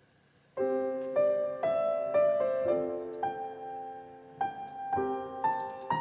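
Background piano music starts about half a second in, with chords struck together and new notes every half second or so.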